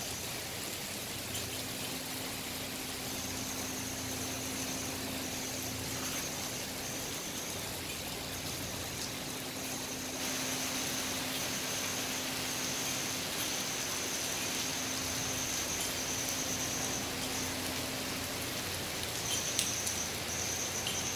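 Monsoon rain falling steadily: an even hiss of rain on the road, lawn and trees, a little louder from about ten seconds in.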